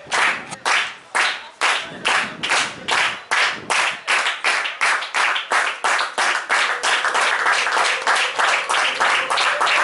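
A group of people clapping in unison in a steady beat that speeds up, from about two claps a second to about three.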